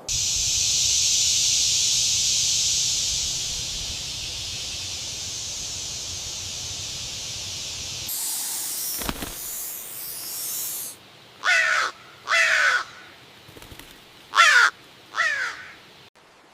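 A steady high hiss for about eight seconds, then a bird giving four harsh, downward-sliding calls in two pairs near the end.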